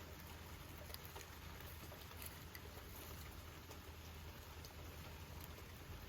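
Faint, steady sizzling with scattered small pops from food frying on a small iron griddle plate over a burner.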